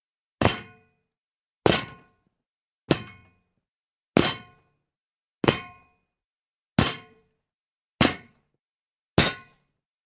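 A metal gate struck by someone jumping onto it: eight separate clangs, about one every second and a quarter. Each has a short metallic ring that dies away quickly, with silence between the hits.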